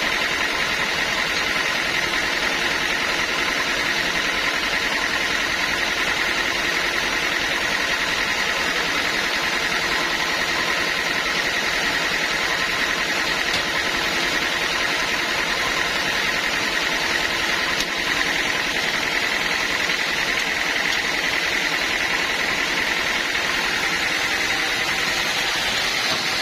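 Engine-driven band sawmill running steadily: an even mechanical noise with a constant high whine and no change in load.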